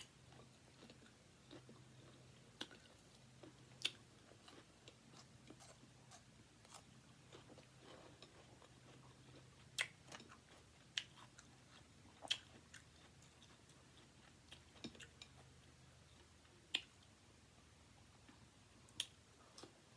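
Quiet, close-up chewing and biting of food, with scattered sharp crunches and mouth clicks, under a faint steady low hum.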